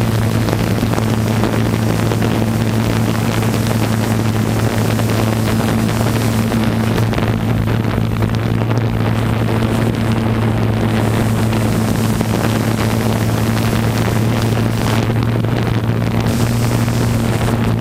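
Steady hum of a quadcopter drone's motors and propellers, heard through the camera it carries, holding one unchanging pitch.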